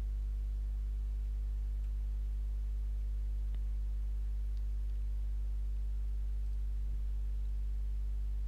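Steady low electrical mains hum on the voice-over recording, unchanging throughout, with a couple of faint keyboard clicks around the middle.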